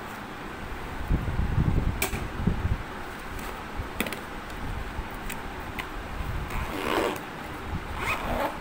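Plastic tiffin box and its lid handled and fitted into a zippered insulated lunch bag: dull knocks, a couple of sharp plastic clicks and some fabric rustling over a steady background noise.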